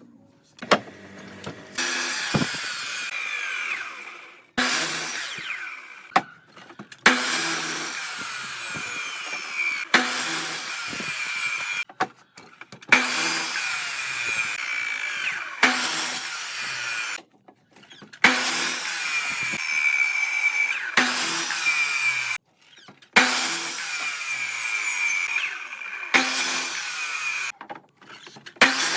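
A power tool cutting or shaping wood with a steady high whine over a noisy rasp, in short stretches of a few seconds that start and stop abruptly.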